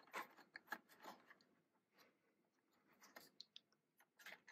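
Faint scratching and small clicks of a small screwdriver turning out the screws that hold an iBook G4's AirPort card tray, in short spells in the first second or so and again toward the end.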